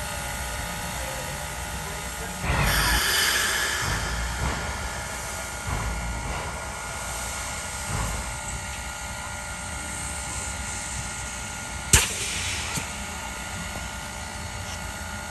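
Clover Valley Lumber Co. No. 4 steam locomotive working slowly. It gives a loud exhaust chuff with hissing steam a little over two seconds in, then softer chuffs about once a second, and a single sharp metallic knock about twelve seconds in.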